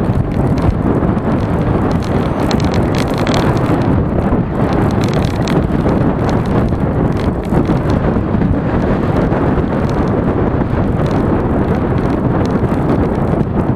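Wind rushing over an SJ5000X action camera's microphone on a moving bicycle, a loud, steady rumble.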